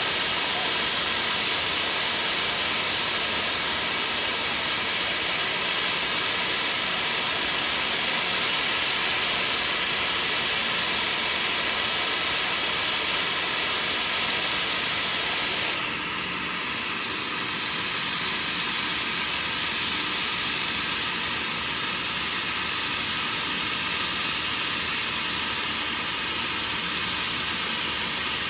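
Small planes' engines running at power, a steady loud rushing hiss with a faint whine in it. The sound changes abruptly, turning a little quieter and duller, a little past halfway.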